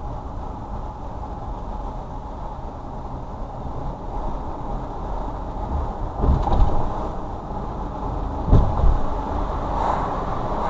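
Steady road noise of a car being driven, a low rumble of tyres and engine, with a couple of heavier thumps around six and eight and a half seconds in.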